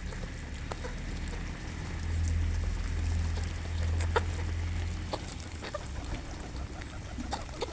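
Birds feeding, with scattered small clicks of pecking at feed over a low rumble.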